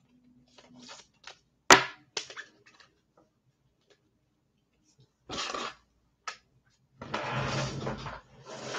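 A few scattered clicks and knocks, one sharp knock about two seconds in being the loudest, then a short rustle and a longer stretch of rustling noise over a low hum near the end.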